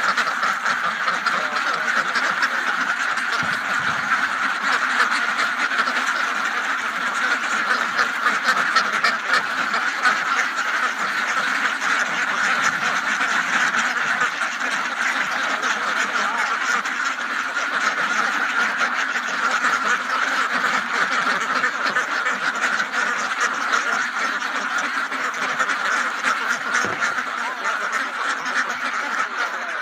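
A flock of ducks quacking continuously, many calls overlapping into a steady chatter.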